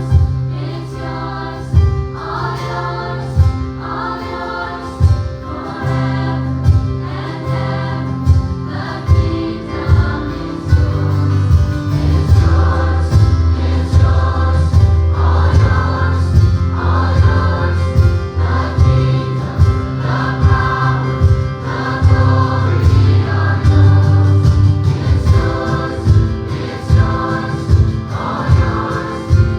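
A choir singing gospel music with a live band, steady bass and a regular beat.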